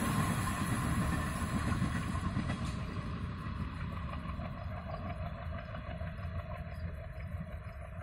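Passenger train running away along the track, the rumble of its wheels on the rails fading steadily as it recedes.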